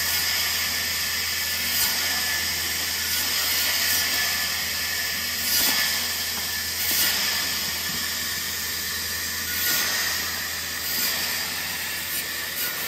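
Band saw running and cutting small wooden strips fed through a template jig. It makes a steady high hiss over a low motor hum, swells briefly several times, and fades near the end.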